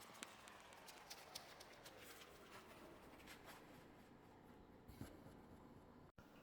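Near silence with faint scratchy rubbing and scattered soft ticks: hands handling a foam banana squishy toy. The sound drops out for a moment near the end.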